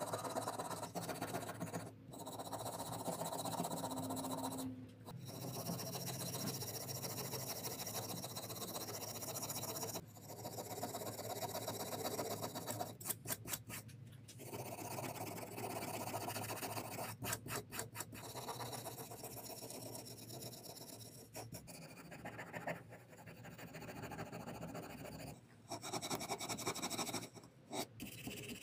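Hand scraping and scrubbing on the rusty parts of an antique hand plane being cleaned. It comes as a string of short clips that cut off abruptly, with quick back-and-forth strokes in places.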